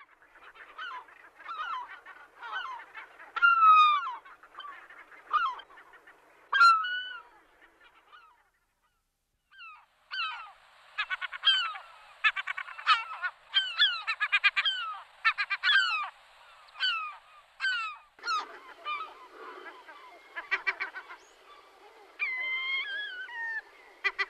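A flock of geese honking, many short calls overlapping, with a brief pause about eight seconds in.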